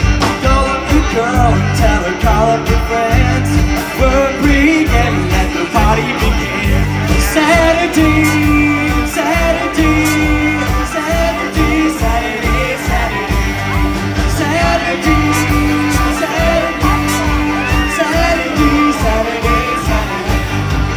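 Live rock band playing: electric guitars and drums over a steady beat, with a lead vocal.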